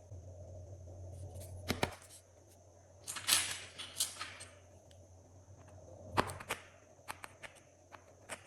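Glossy slime being squished and stretched by hand, with mixed-in bits: sharp sticky clicks and air-bubble pops, and a burst of crackling about three seconds in.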